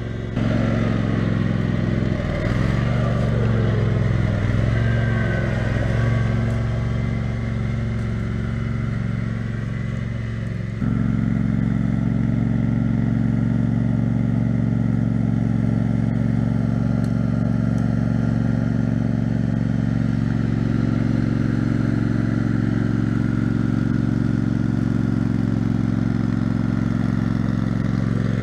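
Engine of a homemade 6x4 off-road lawn tractor running under load as it drives through mud and up a bank, its pitch rising and falling for the first ten seconds or so. About eleven seconds in the sound changes abruptly, and the engine then runs at a steady pitch.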